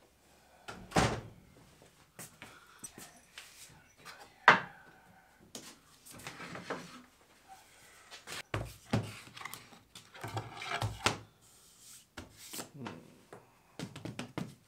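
Irregular knocks and clatter of scrap wood boards being picked up, shuffled and set down on a wooden workbench, with the loudest sharp knock about four and a half seconds in.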